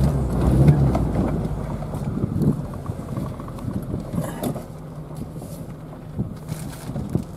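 Suzuki Sidekick 4x4's engine running at low speed on a rough desert dirt track, heard from inside the cab, with a few short knocks and rattles as it goes over rocks. The engine sound drops lower about halfway through.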